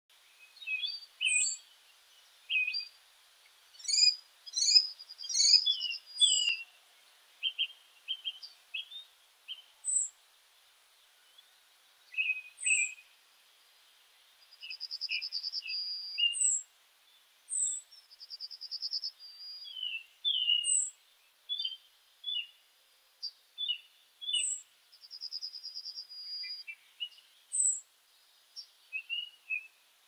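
Several songbirds singing and calling together: short chirps and warbling notes, a repeated high thin falling note every second or two, and buzzy trills about a second long.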